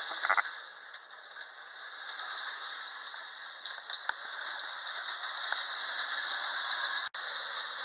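Tin-plate toy train, a Wyandotte Hafner locomotive with a Lionel electric motor pulling Hafner and Marks wind-up cars, running around its track with a steady metallic rattle and clickety-clack. The loose couplings clang and bang. The sound drops about a second in and swells again as the train circles.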